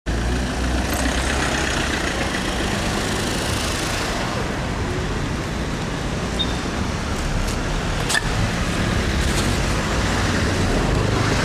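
City street traffic: a steady rumble of cars and engines passing, with a few short clicks about seven to eight seconds in.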